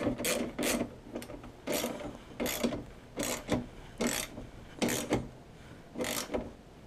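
Socket ratchet wrench being worked back and forth to tighten the winch mount bolts, its pawl rasping on each backstroke: about a dozen short, uneven strokes.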